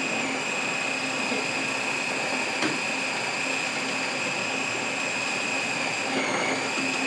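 Electric mini food chopper running steadily with a high motor whine while pressed down by hand. Its pitch dips briefly about six seconds in.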